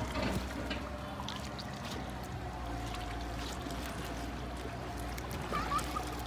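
Steady low motor hum over water sounds, with a few small clicks.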